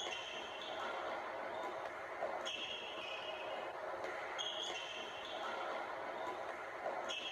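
Indoor basketball game sound: a ball dribbling on a hardwood court, with a few short, high-pitched sneaker squeaks.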